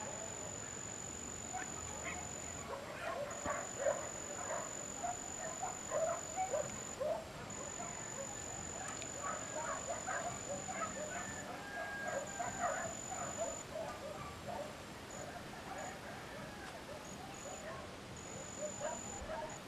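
Rural outdoor ambience: dogs barking in short calls at a distance, over a high, steady insect trill that stops and starts again every few seconds.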